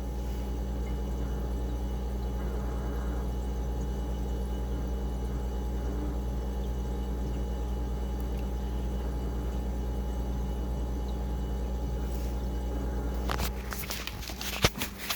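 Frigidaire refrigerator running: a steady low hum from the compressor with a continuous noise over it, the head-pressure sound that the owner takes, together with the icing-over, as a sign of a low refrigerant charge. About thirteen seconds in the hum drops away, and a few sharp clicks follow, one loud.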